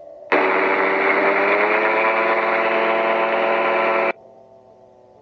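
Magni gyroplane's engine running at takeoff power on the takeoff roll, heard loud through the headset intercom. Its pitch rises slightly. The sound cuts in abruptly about a third of a second in and cuts off just as abruptly about four seconds in, leaving a faint steady engine hum.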